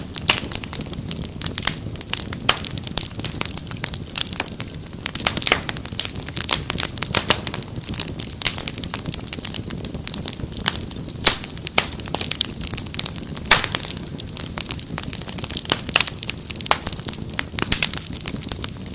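Wood fire crackling, with frequent sharp pops and snaps of uneven strength over a low steady rumble of burning.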